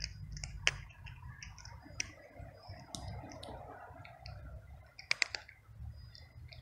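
Tabby cat crunching dry kibble: irregular sharp clicks, a strong one just under a second in and a quick cluster about five seconds in.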